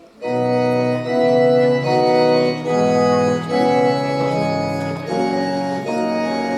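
Instrumental music starts abruptly just after the beginning: a tune of held chords that change about every half second.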